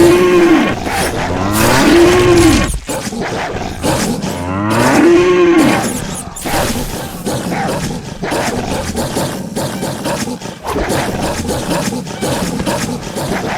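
Animal calls: three short cries in the first six seconds, each rising then falling in pitch, then a rougher, noisier stretch.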